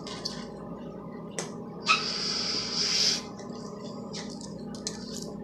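Beer poured from a Budweiser can into another drink can: a short click, then a fizzing, splashing hiss about two seconds in that lasts just over a second.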